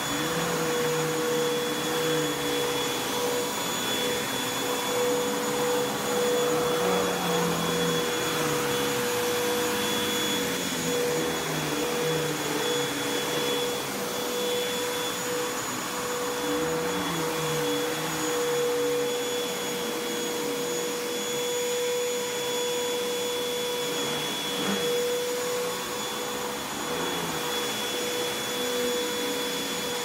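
Upright vacuum cleaner running on carpet as it is pushed back and forth: a steady motor whine over a rushing of air, with a lower hum that rises and falls with the strokes.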